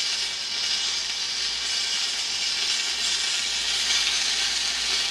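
Steady sizzling hiss from a whole chicken roasting on an open Cobb grill, its juices and fat frying in the heat.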